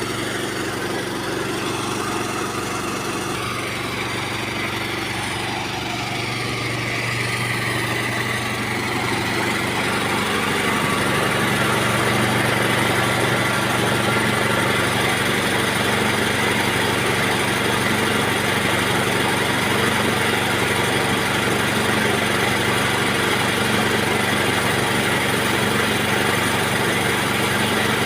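A motor running steadily with a constant hum. It grows louder from about eight to twelve seconds in, then holds steady.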